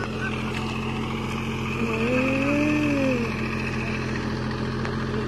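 Deutz-Fahr Agrolux 50 4WD tractor's diesel engine running steadily under load as it works through deep, waterlogged mud. A short call rises and falls in pitch about two seconds in.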